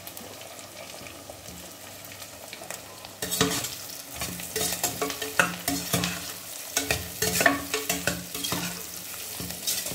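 Crumbled potato sizzling in hot oil with onion and curry leaves. From about three seconds in, a spatula stirs it, scraping against the pan in quick, irregular strokes.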